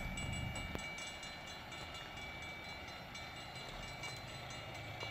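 Railroad crossing warning bell ringing as a steady high ringing while the gates are down for an approaching train.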